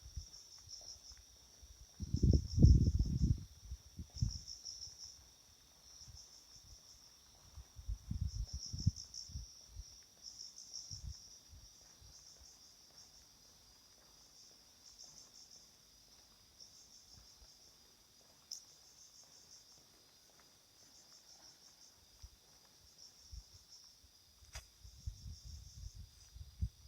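Crickets chirping in repeated high, pulsing trains, steady throughout. Low rumbling thuds break in about two seconds in (the loudest sound), again around eight seconds, and near the end.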